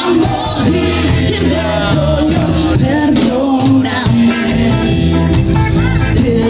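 Ska band playing live, a woman singing lead into a microphone over guitar and keyboard.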